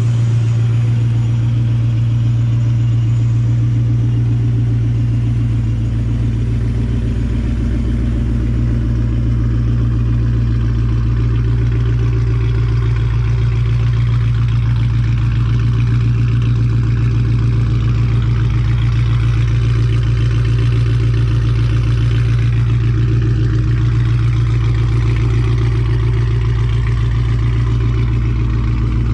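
Mustang with a Borla Attak cat-back exhaust running steadily, its exhaust giving a deep, even drone with no change in engine speed.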